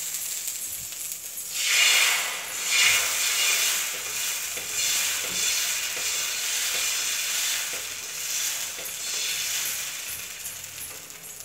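Water and oil sizzling on a hot plain (non-nonstick) iron tawa, with two louder surges about two and three seconds in. Dosa batter is then ladled on and spread, and the sizzle fades toward the end.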